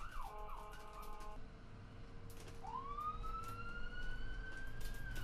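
Faint siren-like electronic tones: a warbling tone gives way to short held notes in the first second, a low note holds on, and a gliding tone rises from about two and a half seconds in and keeps climbing slowly.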